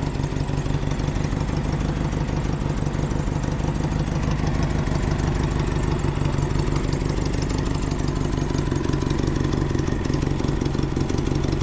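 An engine idling steadily with an even, rapid firing beat and no change in speed.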